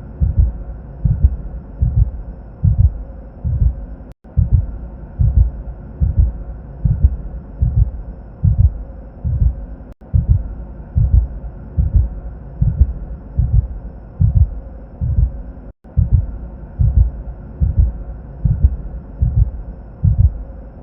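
Cinematic heartbeat sound effect: a low double thump, lub-dub, repeating steadily a little over once a second over a faint steady drone. The sound cuts out for an instant about every six seconds.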